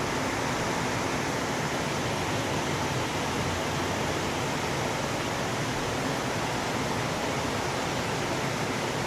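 Heavy rain pouring down, a steady rushing noise with no let-up.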